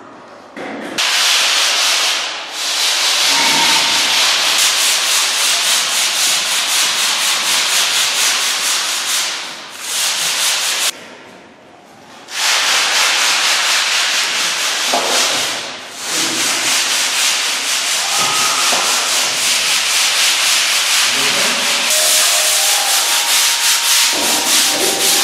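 Abrasive sanding: a loud, steady, rasping scrub in long runs. It breaks off briefly about two seconds in, for about a second around eleven seconds, and again around sixteen seconds.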